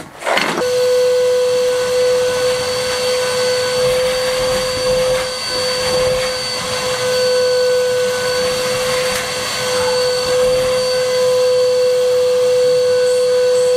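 Canister wet-and-dry vacuum cleaner switched on about half a second in and running steadily, with a constant motor whine.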